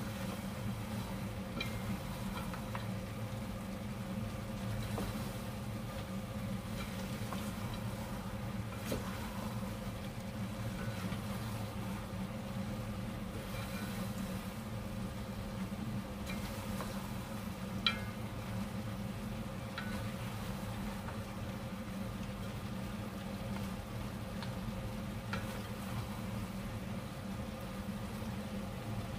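Two wooden spatulas stirring and tossing chicken feet in a pot, with light scrapes and scattered knocks and one sharper knock about eighteen seconds in, over a steady low hum.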